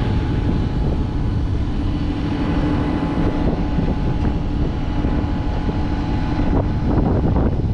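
JCB Fastrac 4220's 6.6-litre six-cylinder diesel engine running steadily.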